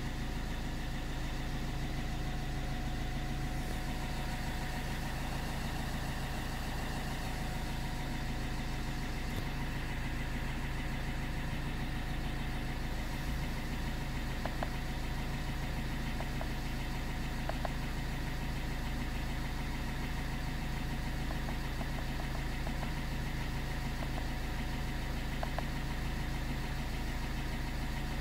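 Car engine idling steadily, with a few faint clicks past the middle.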